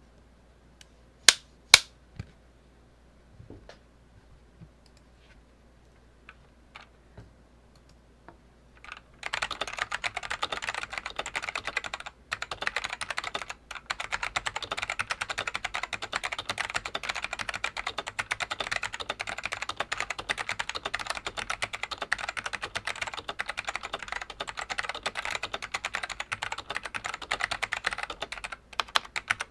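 Dell AT101W keyboard with stock Alps SKCM Black tactile switches being typed on. A few scattered keystrokes come first, two loud ones about a second in. Fast continuous typing starts about nine seconds in, with two brief pauses.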